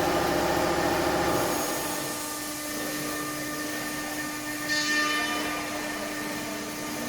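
Stone-engraving CNC router running with a steady whine from its spindle. A louder low rumble drops away about a second and a half in, and a brief hiss comes near the middle.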